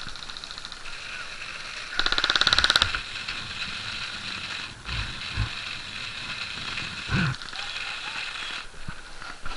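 Airsoft electric gun (AEG) firing one full-auto burst of just under a second, a fast even rattle of shots about two seconds in, followed later by a few dull thuds.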